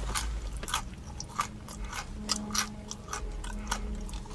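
Close-up chewing of a crisp fried bite, with irregular crunches about two or three times a second.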